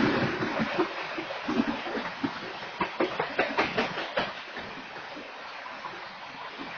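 Freight train of covered hopper cars rolling past, its steel wheels rumbling on the rails, with a quick run of sharp wheel clacks about three seconds in before the rumble eases.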